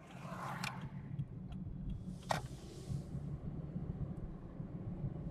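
Car engine and road noise: a steady low rumble that grows louder in the first second, with two short sharp clicks.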